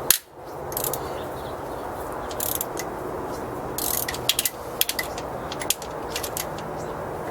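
Hand socket ratchet clicking in short, irregular bursts as cylinder head bolts are loosened, with a sharp knock just at the start, over a steady background hiss.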